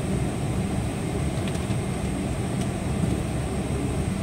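Steady low rumble inside a Boeing 777-200 airliner's cabin as it moves slowly on the ground, with a faint thin high whine over it.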